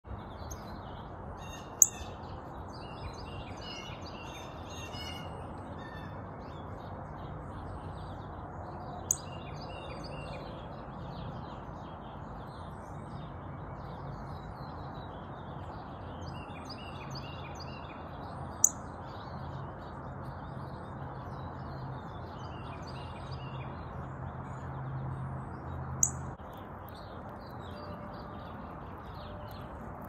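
Wild backyard songbirds chirping, many short calls one after another, with four sharp, loud clicks spaced several seconds apart. Under them is a steady low rumble that stops near the end.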